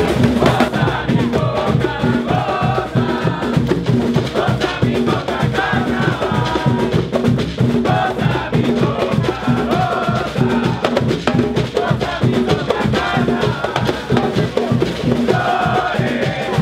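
A percussion troupe of large bass drums, snare drums and metal-shelled drums playing a fast, driving batucada-style rhythm, with voices singing over the drums.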